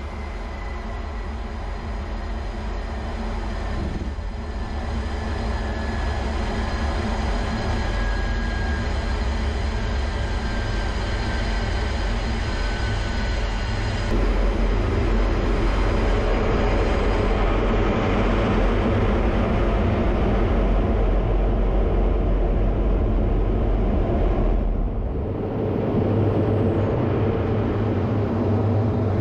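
Fighter jet engine noise heard from inside the cockpit during the takeoff roll and climb-out. A steady rumble carries a whine that slowly falls in pitch; the noise steps up louder about halfway through and dips briefly near the end.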